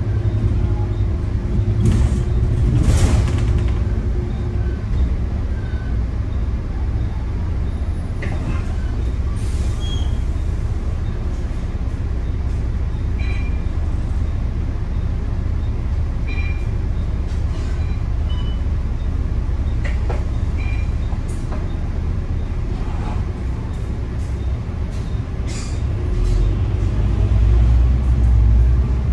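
Volvo B9TL double-decker bus under way, heard from inside its upper deck: its 9-litre engine and the road give a steady low drone, with a few short high squeaks and clunks over it. The drone swells louder near the end.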